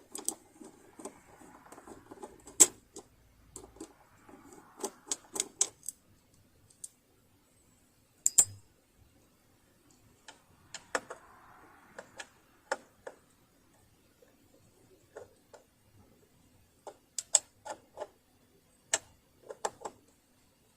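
Screwdriver and small screws clicking and tapping against the base of a Bernina Holidayne 1090 sewing machine while its bottom screws are taken out. There are irregular sharp clicks, with bouts of light scraping between them.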